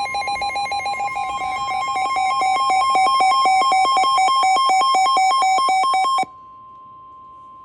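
Weather radio alert: a loud, rapidly pulsing electronic alarm over a steady tone of about a thousand hertz, the NOAA 1050 Hz warning alert tone. A little after six seconds the pulsing stops suddenly, and the steady alert tone goes on alone, much quieter.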